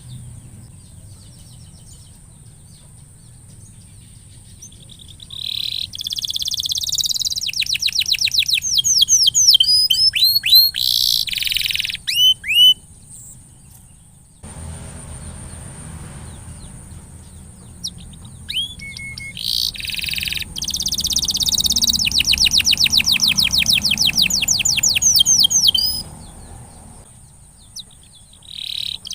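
Domestic canary singing in two long bouts, with fast rolling trills and short falling whistles, separated by quiet pauses.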